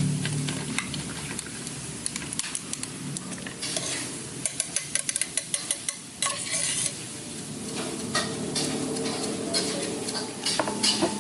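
Stirring with a kitchen utensil, which clinks against its container. The clinks come in a fast run in the middle, with scattered taps before and after.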